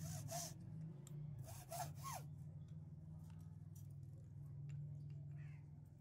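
Hacksaw cutting thin wooden sticks held against a wooden block, in back-and-forth strokes, fairly quiet.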